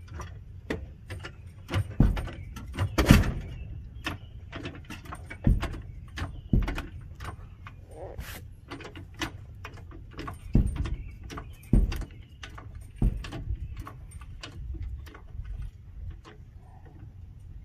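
Irregular knocks and metallic clatters, the loudest about three seconds in and again around eleven to thirteen seconds.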